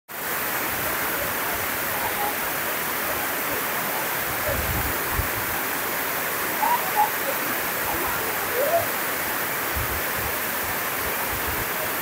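Steady rush of the Sarambu Tai Bai twin waterfall, an even roar of falling water that drops out for an instant at the very start.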